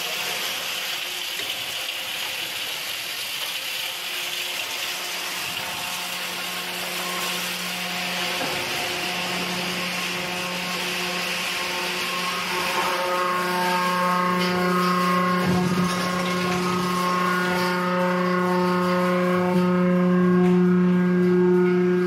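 Ice bin and blower system running: a steady rushing hiss over a low hum. About halfway through, several steady whining tones come in, and the sound grows louder toward the end.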